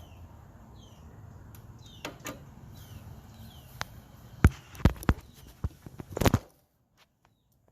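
A few sharp knocks and clatters, the loudest cluster just past six seconds in, over a faint low hum and short falling chirps. Then the sound cuts out almost completely.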